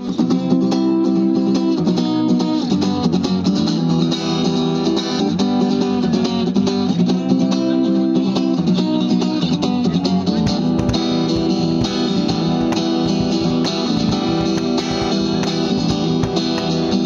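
Guitar strumming a rhythmic chord intro, with a cajón beat joining in about ten seconds in.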